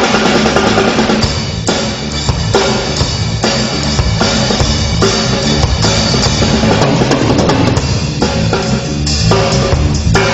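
Drum kit played live in a fast, unbroken run of strokes on the drums and cymbals.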